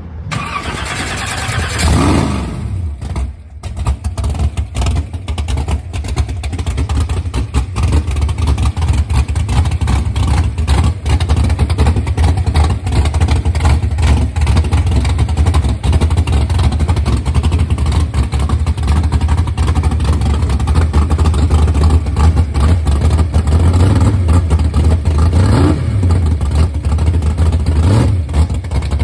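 A race car's carbureted V8 running loudly at a steady idle. It revs up and falls back about two seconds in, and is blipped twice more near the end.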